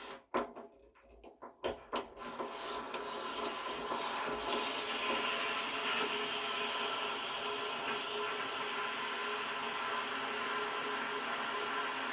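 Water heater drain being flushed: the water sputters out with a few spits and knocks, then about four seconds in settles into a steady full-force rush, like a full force faucet, the sign that the sediment clogging the drain has cleared.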